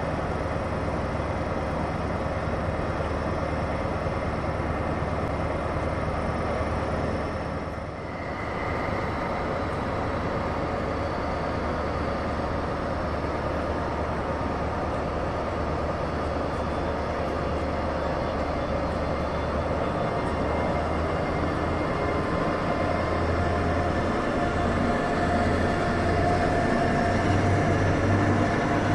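Diesel engine of a class 246 diesel-electric locomotive running with a steady low hum. From about twenty seconds in it grows louder and its pitch steps up as the engine is put under load, with exhaust smoke rising from the roof.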